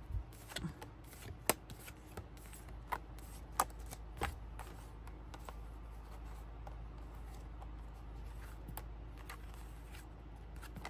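Tarot cards being handled: a few sharp snaps and flicks of the deck in the first four seconds or so, then soft taps and slides as cards are laid down on a fur cloth.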